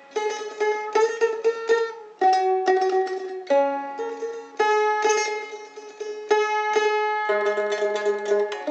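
Mandolin playing a melody alone: plucked notes, some in quick runs and some held for a second or more.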